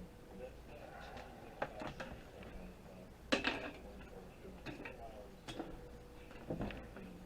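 Small hard computer parts being handled and set down: a series of sharp clicks and clatters, the loudest about three and a half seconds in.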